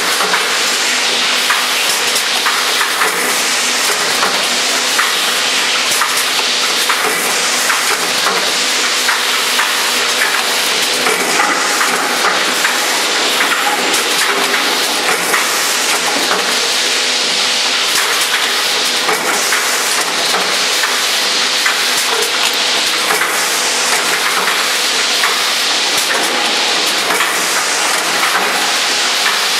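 Four-lane shot glass filling machine running: a steady, loud mechanical din of hissing and many small metallic clicks and clatters over a low steady hum.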